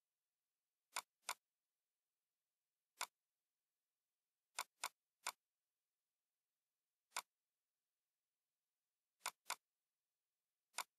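Computer mouse clicks while drafting a floor plan in AutoCAD: about ten short, sharp clicks on near silence, some single and some in quick pairs.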